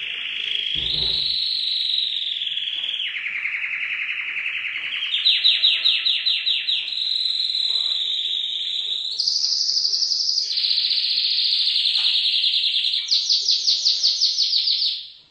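Domestic canary singing a long, unbroken song of rolls and trills that shifts pitch from phrase to phrase, with fast pulsing trills in the middle and near the end. The song stops abruptly at the very end.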